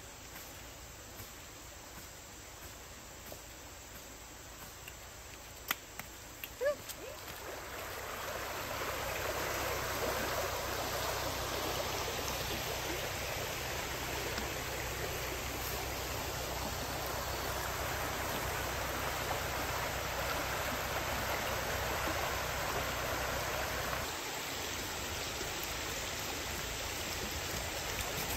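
A rocky creek's steady rushing flow, rising in about a quarter of the way through and running on steadily. Before it comes in, faint insect chirring and a few sharp clicks.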